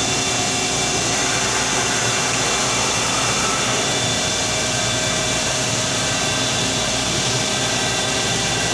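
Hermle UWF1000 universal milling machine running under power: a steady loud whir of motor and gearbox with several steady whining tones.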